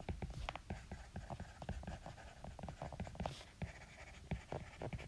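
Stylus writing on a tablet screen: a quick, irregular run of small taps and scratches as words are handwritten.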